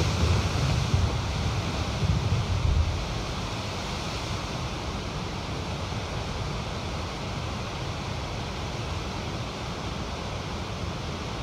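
Steady rushing of whitewater river rapids, with an uneven low rumble in the first three seconds that then settles.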